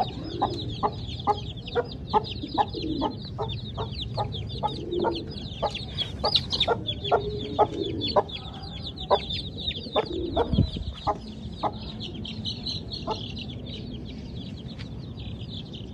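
A mother hen clucking in a regular beat of about two to three clucks a second, thinning out after about nine seconds, over the constant high peeping of her chicks.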